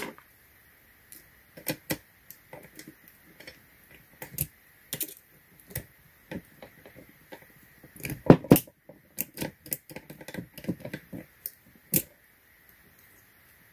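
Lock picks and a tension wrench working in the keyway of a Club steering wheel lock: irregular small metal clicks and scrapes, with a denser, louder run of clicks about eight seconds in.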